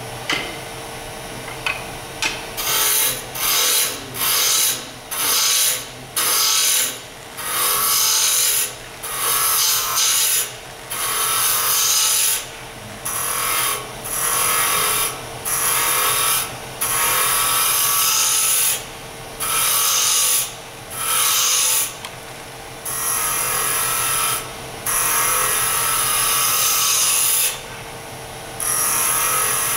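Wood lathe running with a steady hum while a turning gouge cuts the spinning wood blank. From about two seconds in come repeated cuts, each a rasping hiss lasting about a second, with short breaks between passes.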